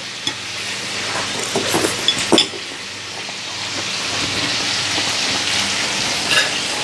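Steady sizzling hiss, with a few sharp clicks and knocks between about one and a half and two and a half seconds in.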